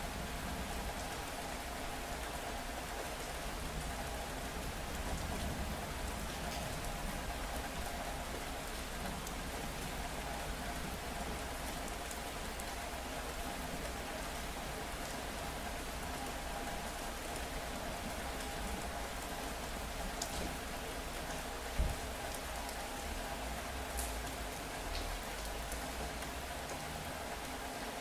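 Steady rain falling in a city street, an even hiss with a low rumble underneath and a faint steady hum. A single brief low thump about three-quarters of the way through.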